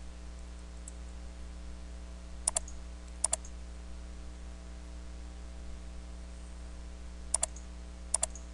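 Computer mouse button clicking four times, each click a quick press-and-release pair: two about two and a half seconds apart early in the middle, and two more near the end. A steady low mains hum runs underneath.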